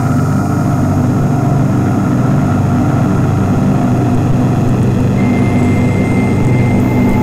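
Steady, loud, low droning rumble, like an engine or aircraft drone, from an ambient soundtrack, with a thin high tone entering about five seconds in.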